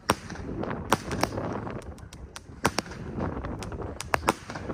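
Fireworks going off: sharp bangs and crackles at irregular intervals, several close together, over a low background rumble.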